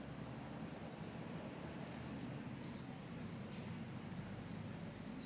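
Small birds chirping: many short, high chirps that each slide quickly downward, repeating throughout over a steady low background hum.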